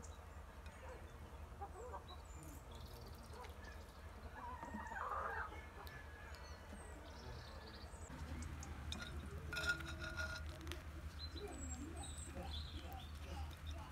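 Farmyard fowl calling now and then in the distance, with two more prominent calls about five and ten seconds in, over a low steady rumble.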